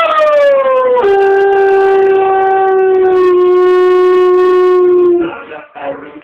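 German Shepherd howling along to a television programme: one long howl that slides down in pitch over the first second, drops to a lower note and holds it for about four more seconds, then stops.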